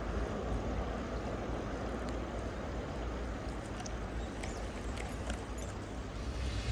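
Steady outdoor background noise with a low rumble, and a few faint clicks a little past the middle.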